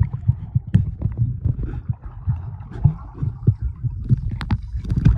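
Water heard from below the surface: a muffled low rumble with irregular dull thuds and bubbling from swimmers moving in the water.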